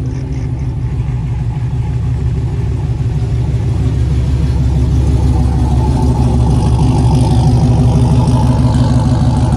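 Lowered Chevrolet Silverado single-cab pickup's engine running with a steady low rumble as the truck rolls slowly past close by, growing louder as it nears.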